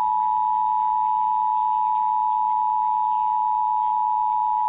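Emergency alert attention tone on weather radio: a steady, unbroken electronic tone held for several seconds at one pitch. It signals that a new warning, here a severe thunderstorm warning, is about to be read.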